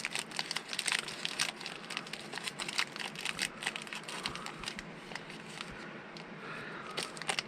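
Individual snack-bar wrapper crinkling as it is opened and handled: dense crackles over the first few seconds that thin out and quieten later.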